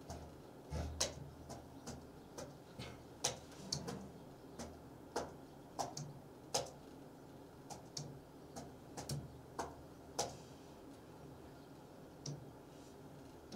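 Irregular light taps and clicks of a fingertip on an interactive touchscreen display, sometimes in quick pairs, thinning out to a single tap near the end.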